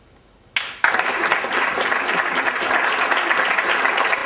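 Audience applause that breaks out suddenly about half a second in and then continues loud and steady.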